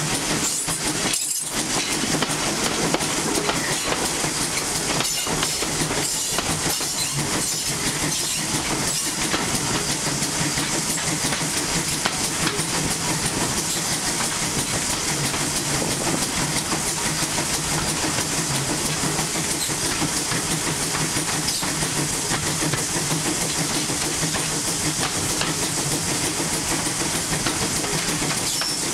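Steam tank locomotive working steadily as it hauls the train, heard from an open carriage window just behind it: the engine's steam and exhaust mixed with wheels running on the rails and wind rush, at an even level throughout.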